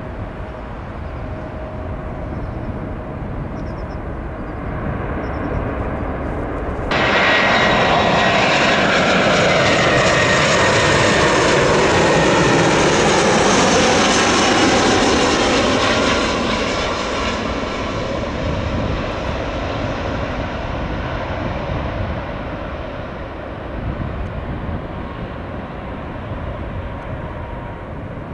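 Jet airliner passing, with engine noise that comes in suddenly about seven seconds in. The engine whine falls in pitch as it goes by, then slowly fades.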